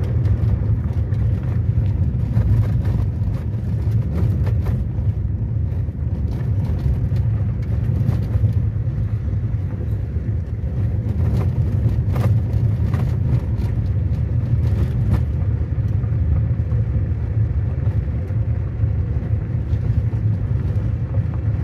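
Car driving on a gravel road, heard from inside the cabin: a steady low rumble of engine and tyres on loose gravel, with occasional light ticks.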